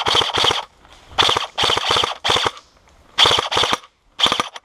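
Scoped airsoft rifle firing on full auto in about six short bursts of rapid clicks, with brief pauses between them.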